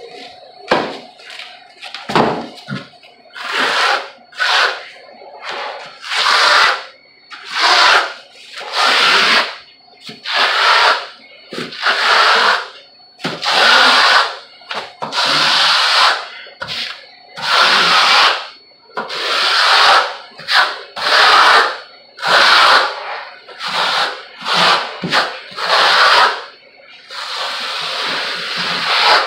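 Hand tool scraping across a wall in repeated strokes about one a second, spreading compound over fiberglass mesh, with a steadier scrape near the end.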